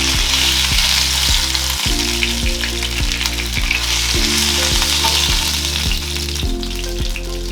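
Chicken drumsticks sizzling as they fry in hot oil in a pan, a steady crackling hiss, over background music with a regular beat.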